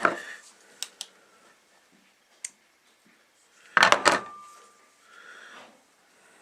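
Small airsoft parts and tools being handled on a work surface: a few light clicks, then a cluster of sharp knocks and clacks about four seconds in, one with a brief metallic ring.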